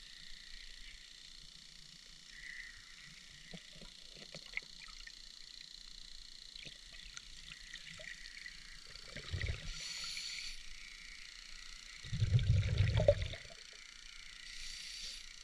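Scuba diver breathing through a regulator, heard underwater. Faint clicks and crackle for the first several seconds. Then a short hiss of inhaling and a louder rumbling burst of exhaled bubbles, with another inhaling hiss near the end.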